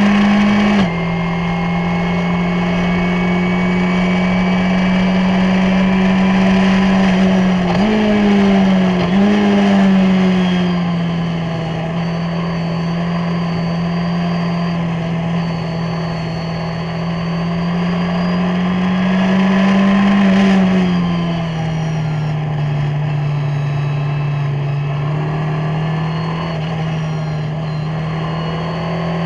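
Onboard sound of a Skip Barber race car's 2.0-litre SOHC four-cylinder engine running hard under racing load. The engine note drops suddenly about a second in and jumps up sharply twice around eight and nine seconds as the car shifts down for a corner, then rises and falls again later on.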